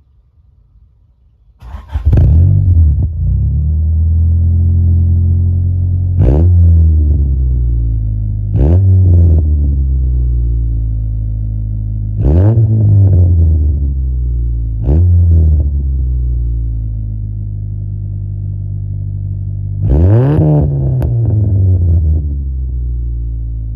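Honda B20A 2.0-litre four-cylinder engine in a BA5 Prelude, heard through an exhaust with the silencer removed: it starts about two seconds in, then idles loudly and is revved five times in quick blips, the revs rising and dropping back to idle each time.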